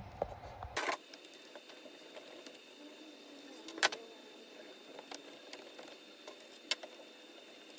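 Small clicks and taps of plastic and metal parts as an RC car's slipper clutch and spur gear are taken apart by hand, with a few sharp clicks, the loudest about four seconds in.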